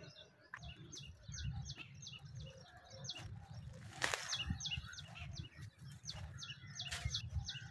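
A bird calling over and over, short high chirps at about three a second, with a few soft crackles of footsteps in dry undergrowth.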